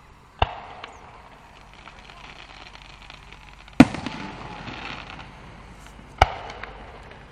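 Aerial firework shells bursting overhead: three sharp booms about three seconds apart, the middle one loudest. Each is followed by a rolling echo and crackle.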